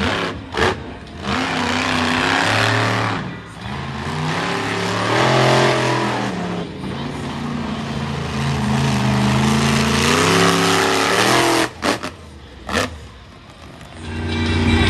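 Monster truck engine revving hard on a timed qualifying run, its pitch climbing and dropping repeatedly as the throttle opens and closes. Two sharp bangs come near the end, then the engine revs up again.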